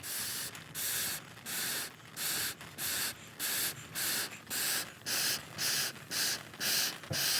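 Air pushed at a campfire in regular whooshes, about one and a half a second, twelve in all, as the fire is fanned or blown to get it going.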